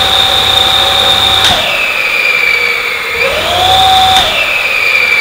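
Electric bike's rear hub motor spinning the lifted wheel unloaded at full throttle, a loud steady high whine, while its overspeed (field-weakening) timing is being tuned. The pitch drops about a second and a half in, climbs back up past the middle, and drops again near the end.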